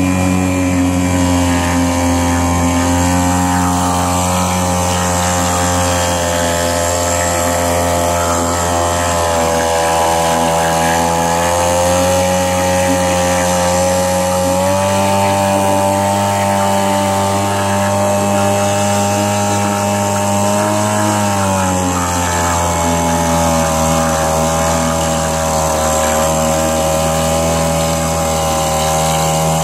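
Aqua Bug outboard motor pushing a canoe along, running steadily. Its engine speed rises slightly about halfway through, then drops to a lower, steady speed about three quarters of the way in.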